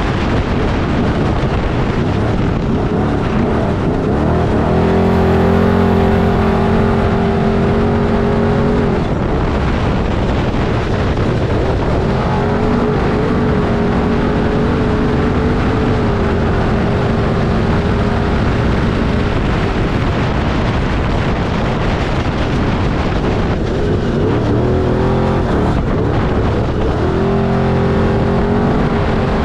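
Off-road race vehicle's engine running under load during a qualifying run, under a loud, steady rush of wind and rough-ground noise. The engine note holds steady pitches that step up or down a few times.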